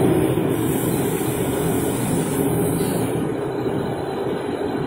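VMC850 vertical CNC machining center running with a steady mechanical hum and whir, the end mill lifted clear of the part. A high hiss over it fades out two to three seconds in.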